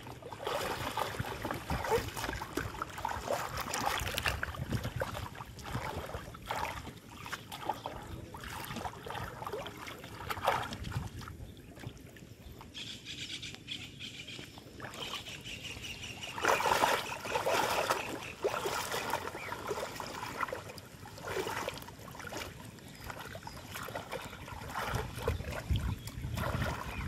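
Water splashing and trickling in irregular bursts.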